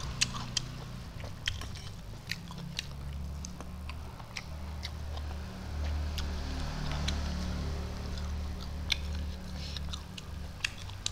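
A man chewing and smacking his lips while eating rice by hand, with short wet mouth clicks scattered through, over a steady low hum.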